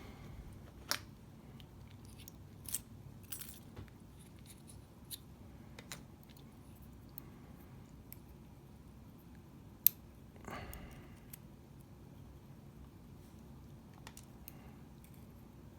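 Scattered small metallic clicks and taps as lock pins and springs are picked out of the top pin stack of a disassembled Lince C4 lock, with one sharper click about ten seconds in followed by a brief scraping rustle.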